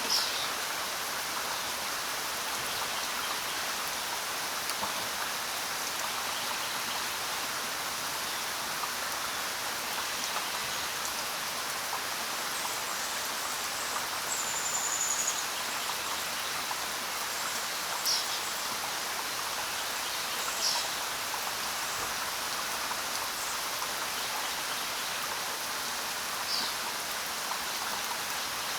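Steady rain with a handful of short, high bird chirps scattered through it and one brief higher whistle about halfway through.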